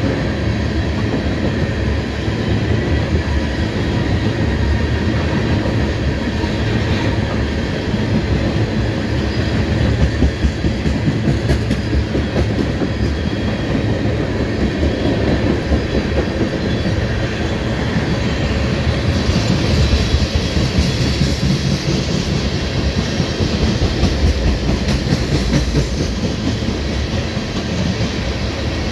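Crude oil tank cars of a freight train rolling past, a steady rumble with the steel wheels clicking over rail joints. About two-thirds of the way in, the wheel noise turns brighter and hissier.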